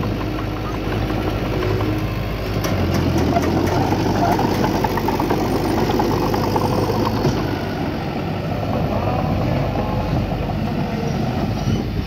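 Diesel engine of heavy earthmoving machinery running continuously. It grows louder from about two and a half seconds in, holds for a few seconds, then eases back.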